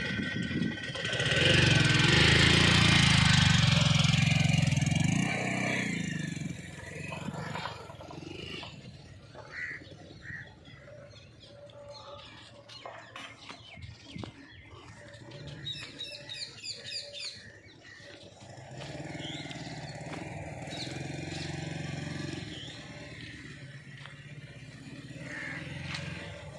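A motor vehicle engine passes close by, loudest in the first few seconds and then fading. About sixteen seconds in, a bird gives a quick run of high chirps.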